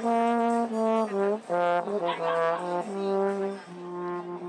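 Music: a brass instrument playing a slow tune of held notes, one melodic line, with a longer held note near the end.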